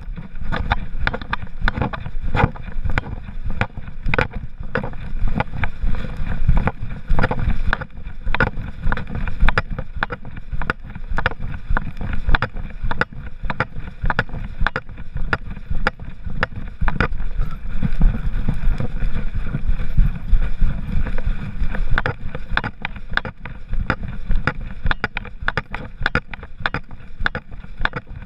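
Body-mounted GoPro HERO3 knocking and rubbing in its mount on a walking poodle's back, with irregular sharp clicks several times a second over a constant low rumble of fur and wind on the microphone.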